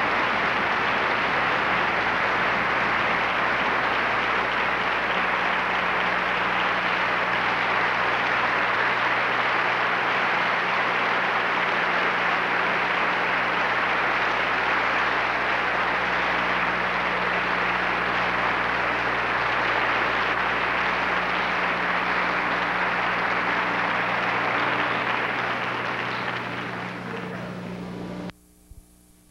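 Audience applauding steadily, dense and even, fading away near the end and then cutting off suddenly.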